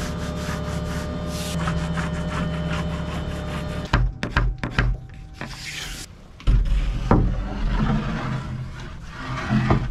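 Wood rubbing and scraping on a plywood workbench as a template is slid and traced with a pencil, then a few knocks and thuds as hardwood boards are handled and set down. Background music plays through the first part and stops about four seconds in.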